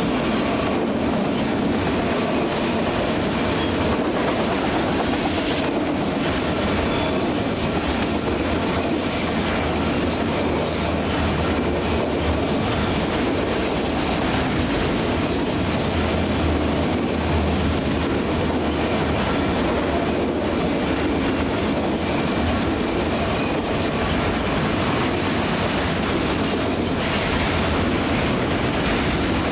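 Freight train of autorack cars rolling past at close range: a steady rumble of steel wheels on rail, with high-pitched wheel squeal coming and going.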